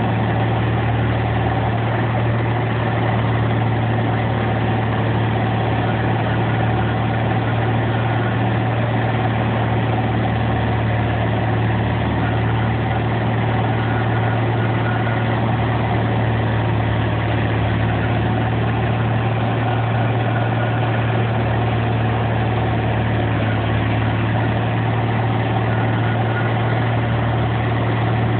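1994 Jones Mighty Giant tub grinder running steadily while it grinds, its engine and mill making a loud, even din with a strong low hum underneath.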